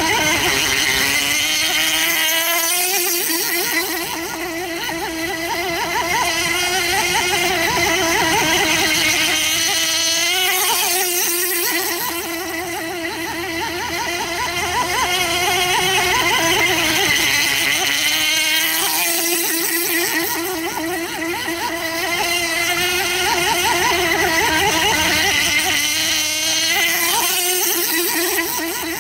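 Small .28 glow engine of an RC outrigger model boat running at speed with a high buzzing note. It swells and fades about every eight seconds, the pitch dipping each time.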